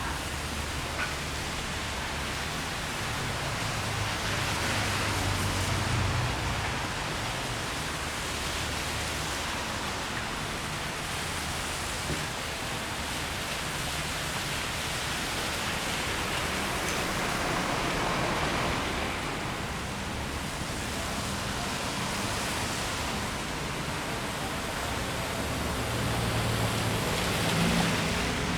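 Steady hiss of falling rain, with a low hum underneath at times.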